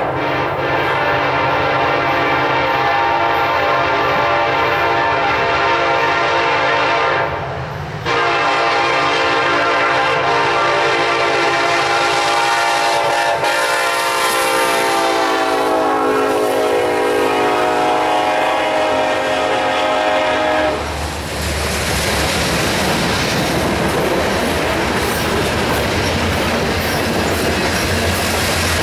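Diesel freight locomotive's horn sounding a long blast, a brief break about seven seconds in, then a second long blast whose pitch drops as the locomotive passes. The horn cuts off about 21 seconds in, leaving the rumble and clickety-clack of a loaded coal train's hopper cars rolling past.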